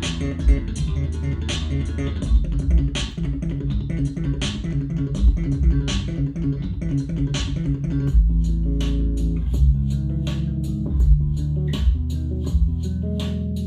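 Solo electric bass guitar music played back over speakers with a subwoofer, a showcase of bass techniques with sharp plucked and slapped attacks. About eight seconds in the playing turns to quicker, crisper notes.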